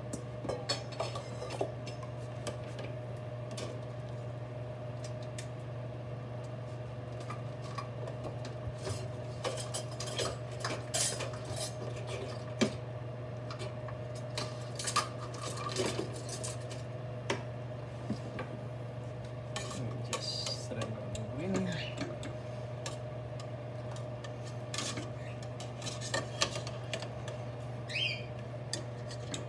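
Metal kitchen utensils clinking and knocking against stainless steel pots, in scattered short clinks, over a steady low hum.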